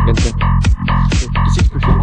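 Electronic dance music with a heavy, sustained bass line and a steady beat of about two strokes a second.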